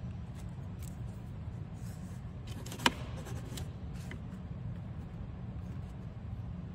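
A single sharp click about three seconds in as the pen is taken up, then faint scratching of a pen writing on a yellow legal pad, over a steady low hum.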